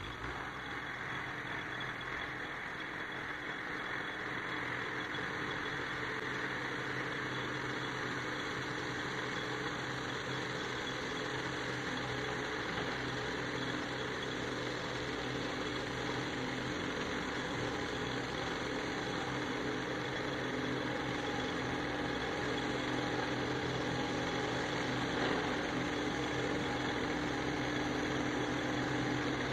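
New Holland 7630 tractor running with its articulated side mower (roçadeira) at work, a steady engine drone that grows gradually louder as the tractor approaches.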